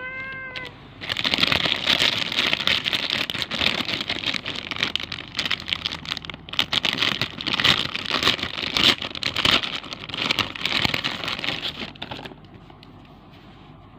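Plastic squishy packaging crinkling and rustling as it is handled and opened, a dense run of crackles that stops about twelve seconds in.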